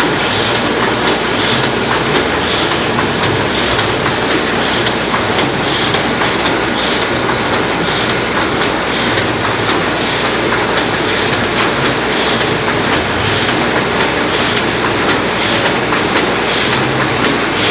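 Oliver 66 semi-automatic offset printing press running steadily, a continuous mechanical clatter with a repeating cycle about every second and a half.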